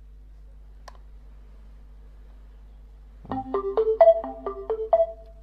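Advance mini Bluetooth speaker playing its power-on chime, a quick run of short electronic notes starting about three seconds in, as its power switch contacts are bridged with a metal tool: the speaker comes on, showing the fault lies in the power switch. A faint tick comes about a second in.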